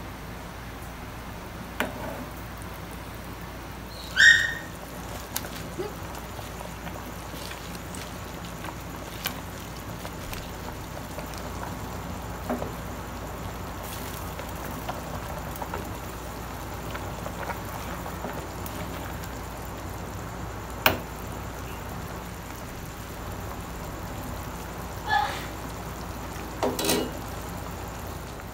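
Broth boiling in a stainless steel pot, a steady bubbling hiss, with scattered clinks and knocks of a metal ladle against the pot. The loudest is a ringing metallic clink about four seconds in, with a few more knocks near the end.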